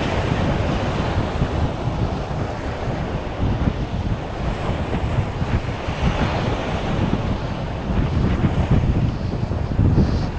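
Wind buffeting the microphone in uneven gusts over the steady wash of surf breaking on the beach.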